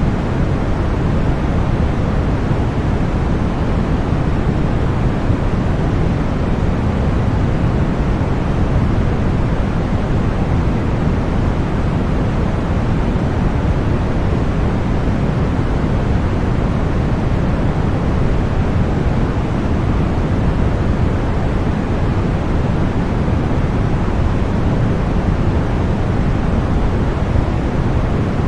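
Continuous deep white noise, a steady, unchanging hiss with most of its energy in the low end, used as a masking sound for tinnitus.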